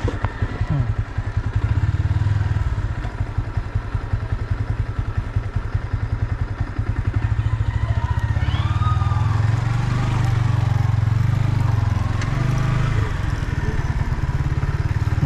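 Yamaha MT-15's 155 cc single-cylinder engine, through its stock exhaust, running under way with a fast pulsing note that swells and eases with the throttle. A brief warbling tone is heard about nine seconds in.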